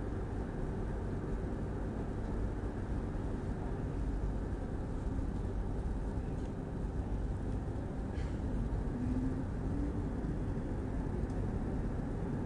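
Steady running rumble of an X10 electric commuter train heard from inside the carriage, wheels rolling on the track. In the last few seconds a faint whine rises slightly in pitch.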